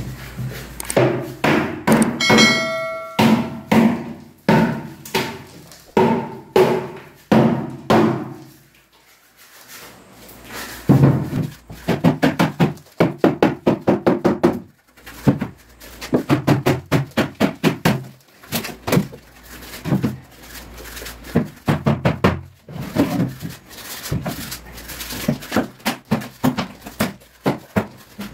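A hand scraper striking and chipping old paint off a wooden cabinet wall: runs of quick, sharp knocks and scrapes, several strokes a second, with a short pause partway through. A brief metallic ring sounds about two seconds in.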